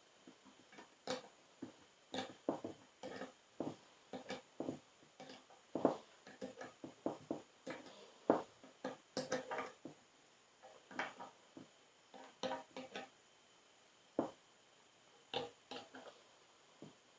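Irregular light metallic clicks and clinks, some ringing briefly, as hand tools and hydrant hardware are handled and the new bolt is fitted.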